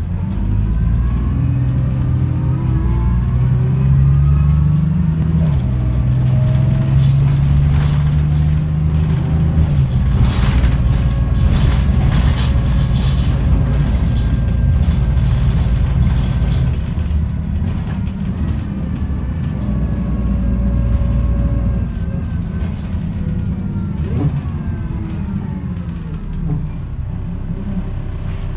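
Alexander Dennis Enviro 300 single-deck bus's engine and automatic gearbox heard from inside the saloon. It pulls hard with a rising whine, changing up twice in the first ten seconds, then cruises and slows toward the end as the pitch falls.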